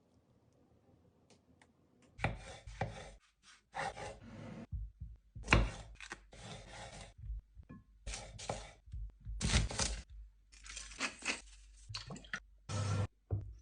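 Kitchen food-preparation noises: after a quiet start about two seconds in, a string of short knocks, scrapes and rustles, the loudest about five and a half seconds in.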